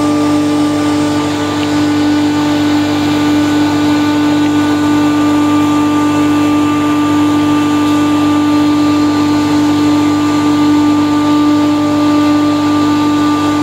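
Steady, loud machinery hum with a constant low drone and a few higher fixed tones over an even rushing noise, unchanging throughout: running plant-room equipment such as a neighbouring compressor, pump or fan.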